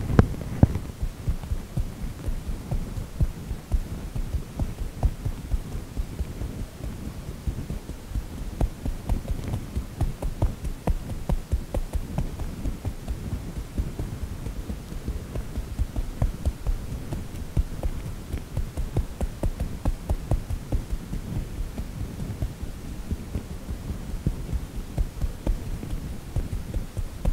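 Fingertips tapping lightly on the scalp, heard as a rapid run of soft, dull thumps, several a second.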